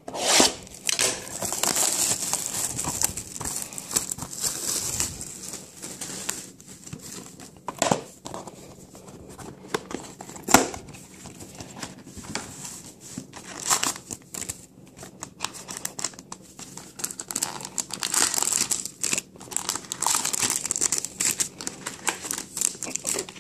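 Plastic wrapping on a box of Panini Playbook football trading cards crinkling and tearing as the box is unwrapped and opened, with a few sharp knocks of cardboard being handled.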